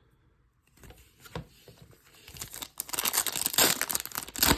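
Plastic foil wrapper of a trading card pack being torn open and crinkled in the hands: a few crackles at first, then steady crinkling through the second half, ending in one sharp loud crackle.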